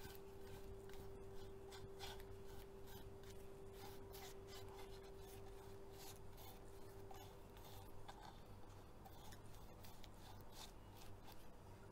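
Faint brush strokes and light taps as a wooden box is handled and brushed with varnish: scattered soft scratches and clicks over a steady low hum.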